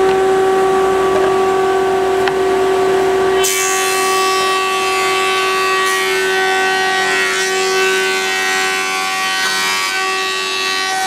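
Thickness planer running with a steady whine; about three and a half seconds in, a board feeds through and the cutterhead bites into the wood, adding a dense rushing hiss that lasts until just before the end.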